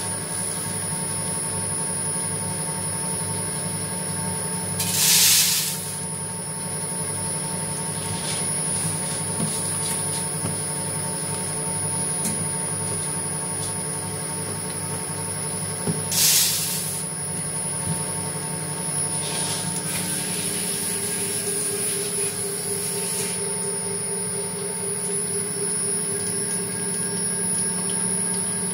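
SPU 40 screw oil press running steadily on sunflower seeds, its 2.2 kW electric motor and gear drive turning the press screw with a steady hum and a high whine. The press is in its first stage, running without the nozzle fitted. Two short, loud hisses stand out about 5 and 16 seconds in.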